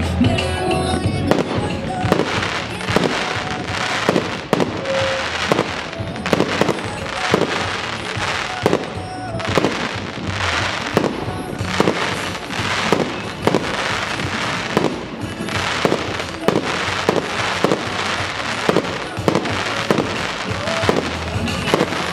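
Aerial firework shells bursting in a steady run of sharp bangs, about one or two a second, with crackling between them and music playing underneath.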